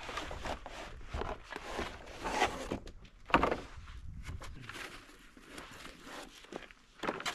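Cardboard box and foam packing sheets rustling and scraping as a folding solar panel is unpacked, a series of short handling noises with the sharpest scrape about three and a half seconds in, then quieter near the end.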